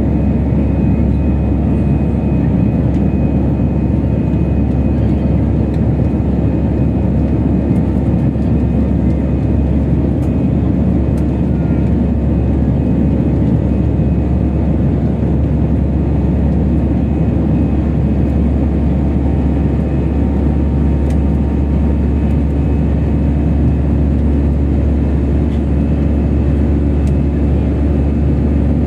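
Jet airliner cabin noise in flight: the steady low roar of the engines and rushing air, with a few faint steady tones above it.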